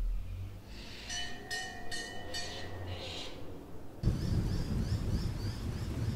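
Dark ambient soundscape: a low rumble under a few held, droning tones with hiss. About four seconds in it gives way suddenly to a dense, louder rain-and-thunder-like rumble, with a row of short high chirps repeating above it.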